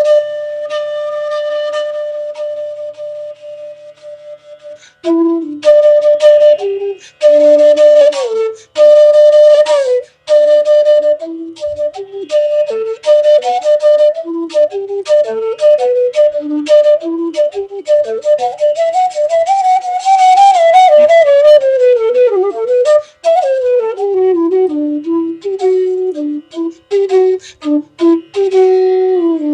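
Bansuri, the North Indian bamboo flute, playing a raga melody. A long held note fades out over the first few seconds, then quick runs of short notes climb to a high phrase that bends up and down about two-thirds of the way through, before winding back down to lower notes.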